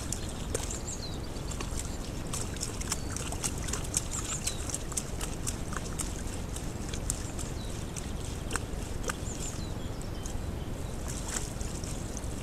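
Wild boar wallowing in a muddy puddle: wet mud and water sloshing and squelching, with many short irregular clicks and crackles over a steady low rumble.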